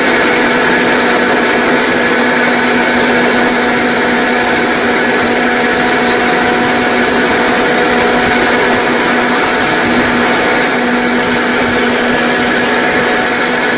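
Single-unit wheat flour milling machine running steadily: a constant loud mechanical whir with a steady hum through it.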